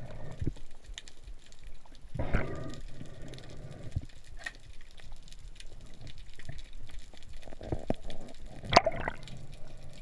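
Underwater sound heard through a camera housing: low water noise with scattered small clicks, and two louder bubbling gushes, about two seconds in and near the end.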